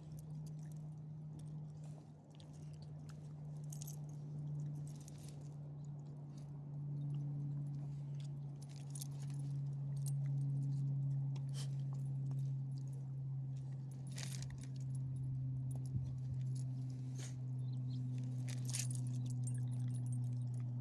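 A small motor hums steadily, its pitch sinking slowly, with scattered light clicks and jingles over it.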